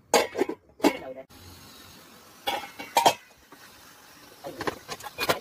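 A stainless-steel pan lid clanking against the rim of a pan of curry as it is handled and lifted off, in three short groups of knocks.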